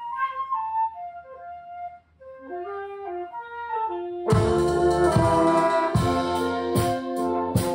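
School wind band playing: a flute melody carries alone for about four seconds, then the full band with brass comes in loudly, drum hits marking the beat a little faster than once a second.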